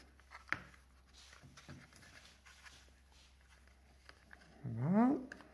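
Hands handling a piece of plastic trim: a sharp click about half a second in, then faint taps and rustling. A short murmured voice sound comes near the end.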